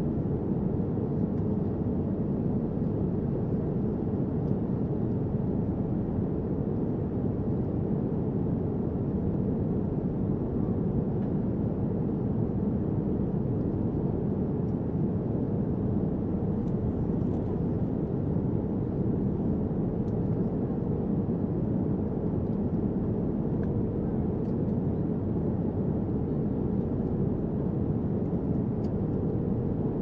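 Steady cabin rumble of a jet airliner in cruise, heard inside the cabin: the even roar of engines and rushing air, deep and unchanging, with a faint steady hum.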